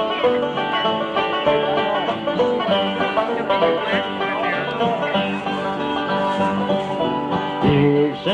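Live bluegrass band playing an instrumental break, with a fast banjo lead over guitar and bass. Near the end a strong note slides in just before the vocal returns.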